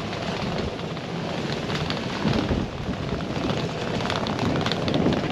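Steady rushing noise of riding a bicycle through city streets, with wind on the microphone and street traffic mixed in, and a few faint rattling clicks.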